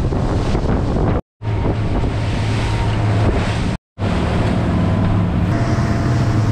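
Fishing boat's engine running at speed with a steady low hum, under heavy wind buffeting on the microphone and the rush of the wake and spray. The sound drops out completely twice for a moment.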